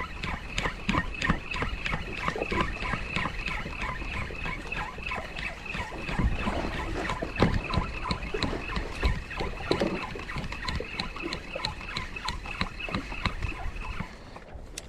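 Okuma spinning reel being cranked steadily while jigging, giving a rapid, even ticking of about four or five a second that stops near the end. Water slaps and thuds against the boat's hull underneath.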